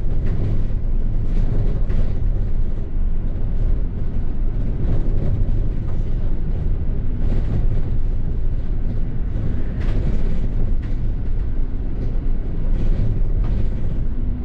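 London double-decker bus running, heard from inside the passenger cabin: a steady low rumble with scattered rattles and knocks.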